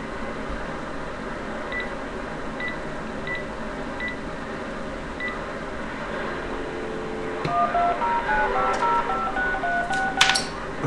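CB radio receiver hissing with band static, with faint short beeps about every second in the first half. From about seven seconds in, a low steady tone and then a quick run of electronic tones hopping between pitches come through the speaker.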